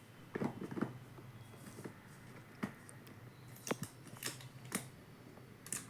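Handling and opening the packaging of a new smartphone's retail box: scattered sharp clicks and short rustles of cardboard and plastic.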